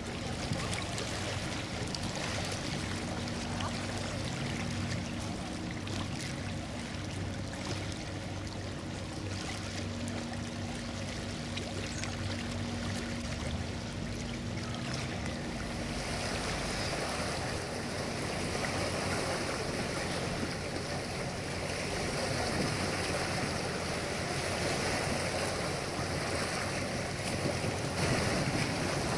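The twin diesel engines of the lake passenger ship MS Graf Zeppelin humming steadily over churning water as it pulls away from the quay. About halfway through, the sound switches to a steady wash of lake waves with wind on the microphone.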